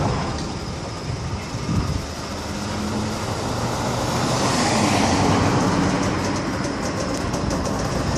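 Railroad tank cars rolling slowly over jointed rail: a steady rumble of wheels and trucks, with a sharp clank right at the start and another knock about two seconds in, and faint high ticking near the end.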